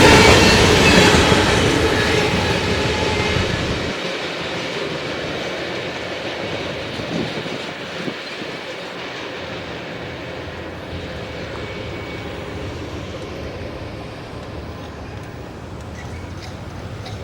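Freight train rolling past on the rails, the wheel and car noise loud at first and fading steadily as the train moves away.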